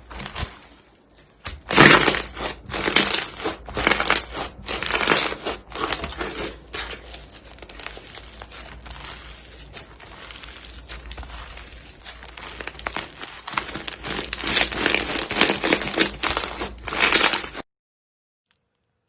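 Hands squeezing, stretching and poking slime, a long run of irregular wet crackles and squishes that is loudest at the start and again near the end, then cuts off suddenly.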